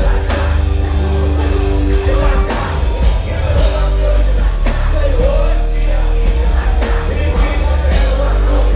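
Loud rock/hip-hop music with singing, a heavy bass line and a steady drum beat.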